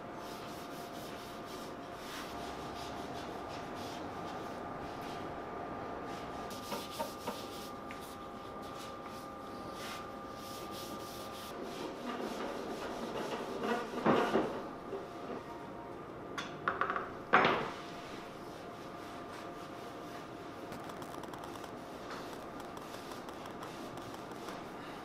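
A cloth rubbing over bare wood as finish is wiped onto a wooden stool, soft and continuous, over a faint steady workshop hum. Two louder handling noises stand out near the middle.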